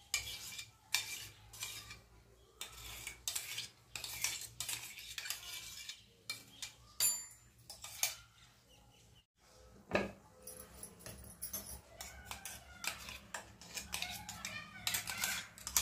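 Metal spoon scraping and clinking against the inside of a stainless-steel mixer-grinder jar in irregular strokes, working out thick ground date paste. The sound breaks off briefly about nine seconds in.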